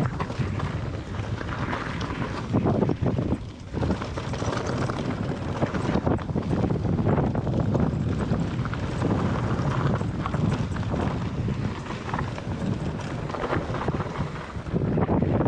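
A mountain bike rattles and clatters as its tyres roll over loose rock and gravel on a trail descent, with many small knocks throughout. Wind rumbles on the microphone.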